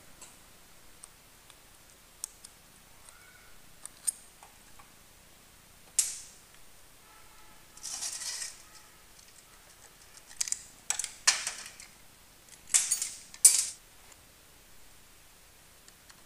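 Metal tools and small parts clinking and clattering during motorcycle engine work: scattered sharp clicks and several short rattling bursts, the loudest around the middle and toward the end.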